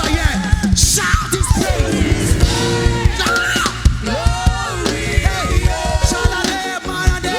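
Live worship music: voices singing over a band with drums keeping a steady beat.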